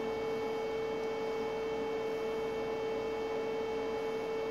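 Steady electrical hum: one clear unchanging tone with fainter overtones above it, and no handling clicks standing out.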